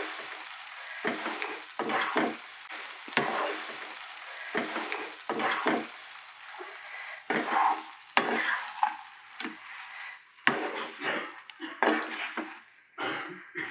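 Wooden spatula stirring and tossing fried potato sticks through a thick sauce in a nonstick wok, in irregular scraping strokes about once a second. A light sizzle from the pan's leftover heat with the gas off dies down as the stirring goes on.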